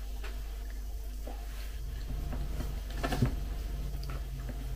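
Metal spoon scooping soft, kefir-soaked cereal flakes from a bowl: faint soft scrapes and ticks, with one brief louder clink about three seconds in, over a low steady hum.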